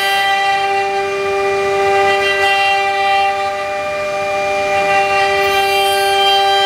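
CNC turning and engraving machine running, its spindle giving a steady, unchanging high whine rich in overtones over a light hiss.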